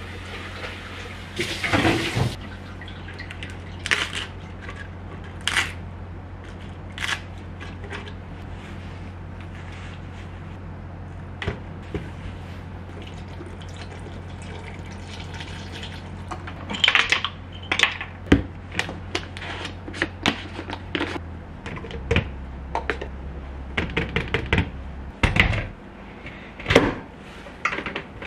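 Kitchen handling sounds while a smoothie is made: scattered clinks and knocks of dishes, a glass blender jar and utensils, and liquid poured into the jar, over a steady low hum. The knocks come thicker in the second half.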